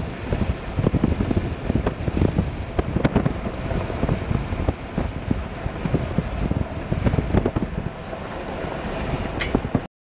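Wind buffeting the microphone at the open window of a moving vehicle, in irregular low gusts. It cuts off suddenly near the end.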